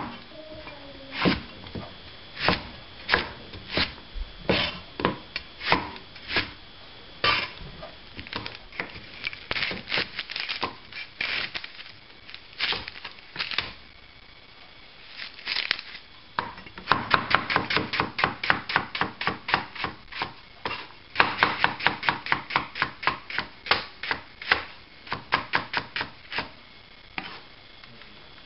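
Knife chopping vegetables on a board: slow, spaced strokes at first, then two quick runs of rapid chopping in the second half.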